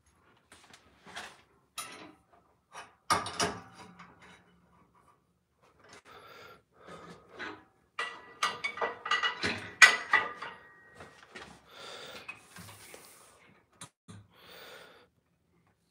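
Irregular metallic knocks, clatters and scrapes as square steel tubing is handled and shifted in a bench vise, with a short stretch of ringing steel about eight to eleven seconds in.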